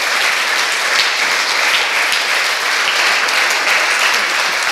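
Audience applauding steadily, a dense unbroken clapping with the children on stage clapping along.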